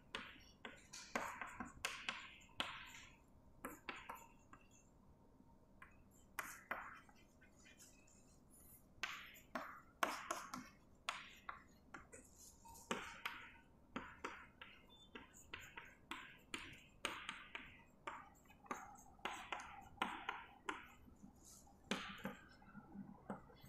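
Chalk writing on a blackboard: a run of short taps and scratches as letters are formed, easing off for a few seconds about four seconds in before picking up again.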